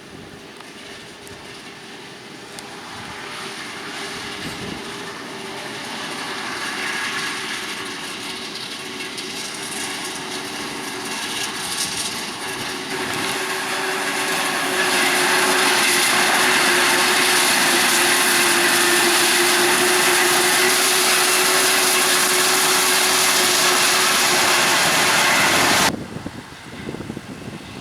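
Heavy harvest machinery running close by, growing louder as it approaches, with a steady engine tone and a strong rushing hiss. It cuts off suddenly near the end.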